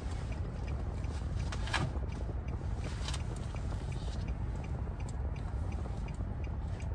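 Car interior noise while driving: a steady low rumble of road and engine heard inside the cabin, with faint regular ticking and a few light clicks.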